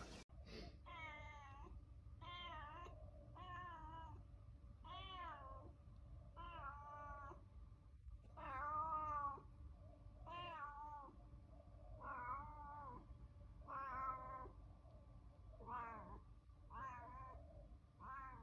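Tabby cat meowing over and over, about one meow a second, each call rising and then falling in pitch.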